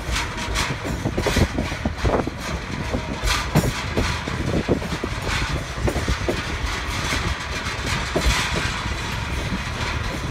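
Passenger train running on the TAZARA line, heard from the carriage while it crosses a steel girder bridge: a steady rumble of wheels on rail with frequent irregular knocks and clanks.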